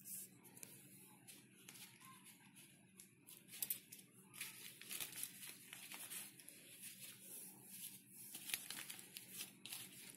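Faint rustling and crinkling of paper banknotes being handled, with scattered small clicks, busier from a few seconds in.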